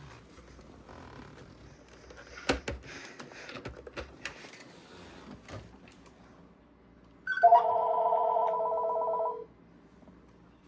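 A few clicks and knocks, then an electronic telephone ringer warbling for about two seconds with a fast trill: an incoming call ringing on a business phone-system handset.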